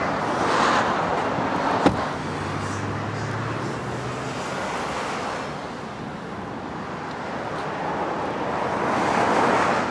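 Road traffic passing, swelling and fading twice, with a single sharp click about two seconds in and a low hum for a couple of seconds after it.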